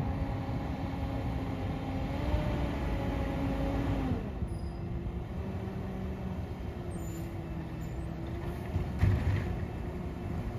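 Diesel engine of a Peterbilt side-loader garbage truck running as the truck approaches, a steady low rumble with an engine note. The note drops to a lower pitch about four seconds in as the truck slows. A short burst of noise about nine seconds in, near where the truck stops.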